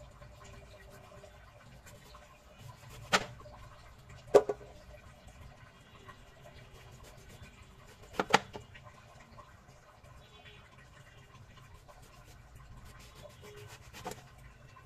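Large kitchen knife cutting through a round green eggplant and knocking down onto the chopping board: sharp knocks about three and four and a half seconds in, a quick double knock about eight seconds in, and a fainter one near the end.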